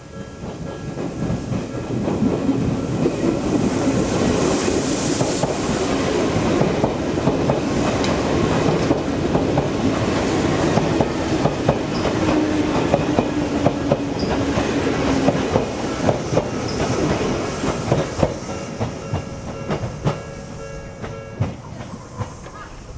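Odakyu Line electric train passing over a level crossing: wheels clattering over rail joints with a steady traction motor hum. It builds up over the first two seconds and fades near the end, with the crossing's warning bell ringing throughout.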